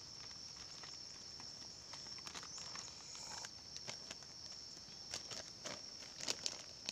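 A steady, high-pitched insect drone, with scattered small clicks and rustles of things being handled on sandy ground, a few coming close together near the end.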